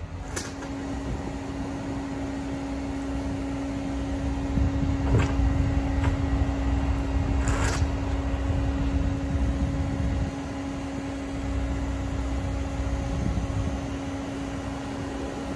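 Aerial ladder fire truck running steadily with its ladder raised, a constant mechanical hum over a low rumble that swells for a few seconds in the middle. Three short sharp clanks, about five and seven and a half seconds in, and one at the very start.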